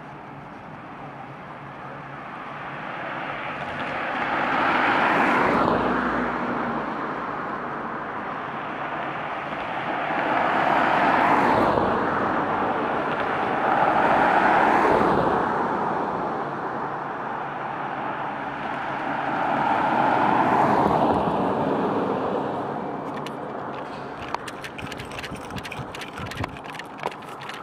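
Road vehicles driving over the level crossing one after another, their tyre and engine noise swelling and fading four times; one of them is a Nissan pickup. Near the end comes a run of light clicks and knocks from the camera being handled and carried.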